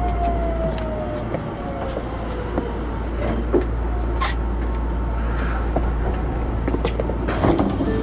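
Osaka Metro 66 series subway train running, heard from inside the car. There is a steady low rumble, a motor whine that falls in pitch over the first couple of seconds as the train slows for a station, and scattered clicks and knocks from the running gear.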